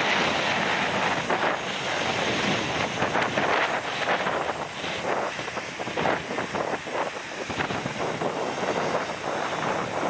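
Jet engines of a Boeing 747 freighter running as the aircraft rolls along the airfield: a steady rushing noise. Gusty wind buffets the microphone over it, making the level waver.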